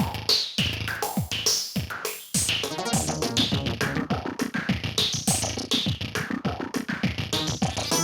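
Upbeat electronic ringtone melody from a Samsung SPH-S1000 mobile phone: a synthesizer tune over a drum-machine beat. The music drops away briefly about two seconds in, then starts again.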